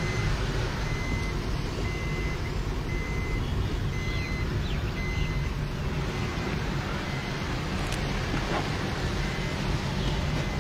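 Steady road and traffic noise heard from a moving vehicle on rain-wet city roads. For about four seconds in the first half, a run of short, evenly spaced high beeps sounds, roughly one every two-thirds of a second.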